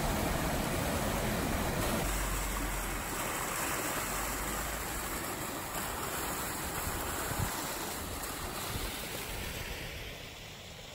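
Water rushing down a concrete-lined stream channel and spilling over a low step: a steady rushing noise that fades near the end.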